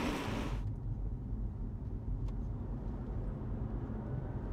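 Low, steady rumble of tyre and wind noise from the all-electric Holden Commodore prototype driving, with no engine note. A hiss at the start cuts off abruptly about half a second in.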